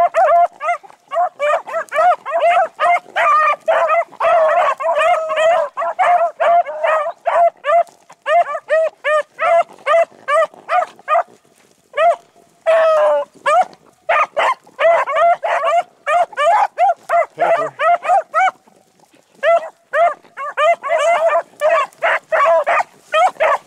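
A pack of beagles baying in rapid, repeated barks as they trail a rabbit's scent. There is one longer drawn-out howl about halfway through, and a short break in the barking about three-quarters of the way through.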